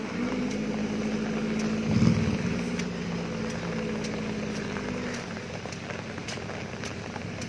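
Engine of a Daihatsu Taft 4x4 running at a steady pace as it drives away along a muddy track, fading after about five seconds. There is a loud low thump about two seconds in.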